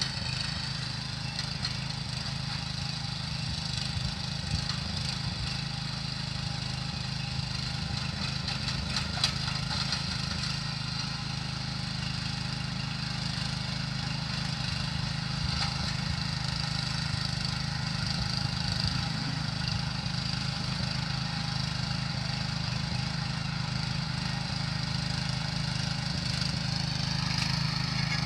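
Small engine of a motorised tiller running steadily, with a few sharp cracks, the clearest about nine seconds in.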